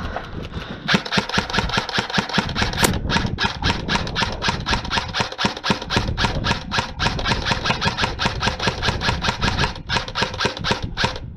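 Airsoft gun firing a long rapid string of shots, about six a second, with a brief pause near the end.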